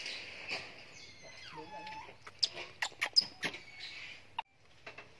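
Baby pig-tailed macaque giving one short call about one and a half seconds in, followed by a run of sharp clicks and scratches of handling close to the microphone.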